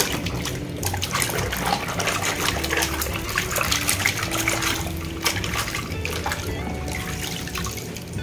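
Muddy water splashing and sloshing in a plastic basin as a toy vehicle is swished back and forth by hand to wash off the mud, in quick irregular splashes.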